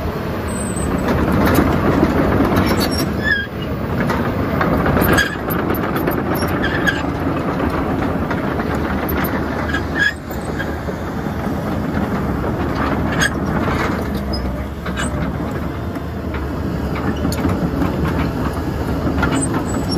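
Caterpillar hydraulic excavator running, its diesel engine and hydraulics working steadily, with a few sharp metallic clanks about a quarter, halfway and two-thirds of the way through.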